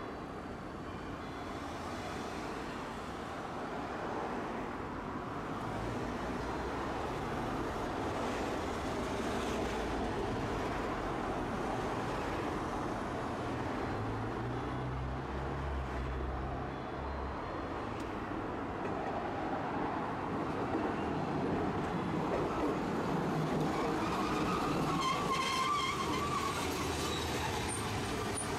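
Road traffic passing on a city street, then a Tosaden streetcar pulling in to the stop, with a high squeal from its wheels and brakes near the end.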